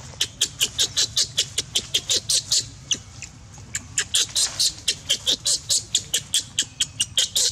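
Baby macaque crying in a rapid run of short, high-pitched squeals, about five a second, with a brief lull around the middle.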